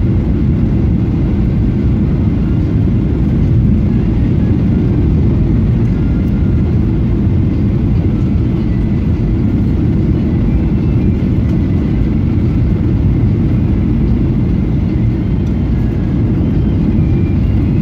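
Steady low rumble of a Boeing 737-800's CFM56 engines and rushing airflow, heard inside the economy cabin on final approach with the flaps extended.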